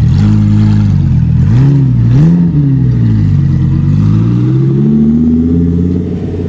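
A sports car's engine revving: two quick rises and falls in revs, then a longer, steady climb in revs before it eases off near the end.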